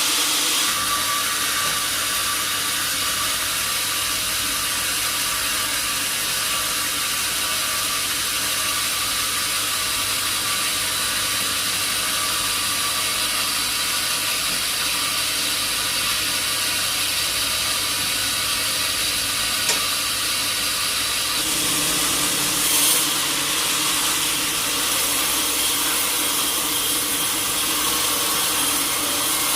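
Sawmill machinery running steadily with a mechanical hiss. The hum shifts about two-thirds of the way through, with a brief louder moment soon after.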